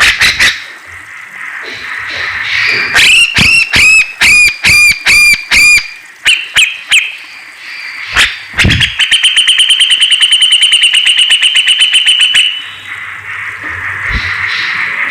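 Cucak jenggot bulbul (Alophoixus bres) singing a loud, varied song: a run of about seven clear, repeated down-slurred notes, a few loose phrases, then a rapid, even trill of about ten notes a second held for over three seconds.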